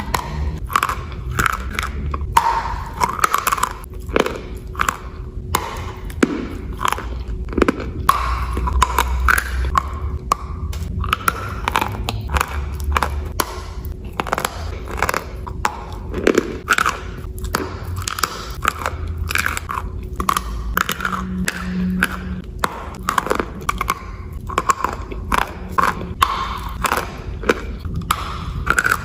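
Close-miked biting and chewing of dry chalk: dense, irregular crunching and crackling as the chalk breaks up between the teeth, several sharp cracks a second throughout.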